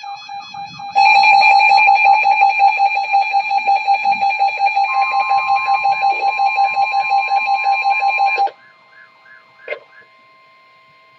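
Emergency Alert System alert tone for a flash flood warning: a rapidly pulsing electronic alarm tone, quieter for the first second and then loud, with a steady higher tone joining about halfway. Both cut off suddenly about two-thirds of the way through, leaving a faint hum and a single click.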